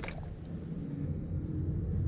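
Wind buffeting the camera microphone: a low, uneven rumble that grows a little louder toward the end, with a short click right at the start.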